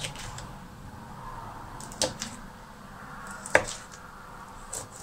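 Kitchen knife chopping small sweet peppers on a plastic cutting board: a handful of sharp, irregularly spaced knocks of the blade against the board, two of them in quick pairs.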